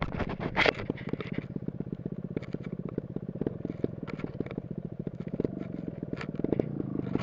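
Dirt bike engine running at low revs, an even, rapid pulsing, with a few sharp knocks and scrapes over it, the loudest about half a second in.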